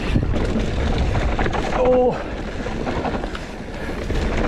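Mountain bike rolling down a dirt singletrack: tyres rumbling over the ground, and the bike rattling and knocking over bumps. It gets quieter after about two seconds.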